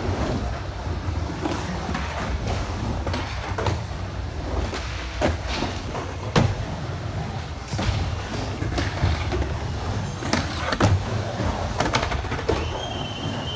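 Skateboard wheels rolling with a continuous low rumble, broken by the clacks and hits of the board during tricks. The sharpest impacts come about six seconds in and again around eleven seconds.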